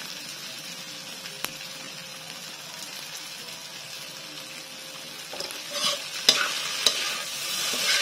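Tofu sisig sizzling steadily in a hot pan. About five seconds in it is stirred, with scraping strokes and two sharp knocks of the utensil against the pan.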